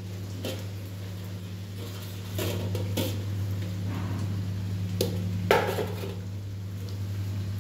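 Steel kitchen pots, lids and bowls clinking and knocking as they are handled, about six separate knocks, the loudest a little past halfway. A steady low hum runs underneath.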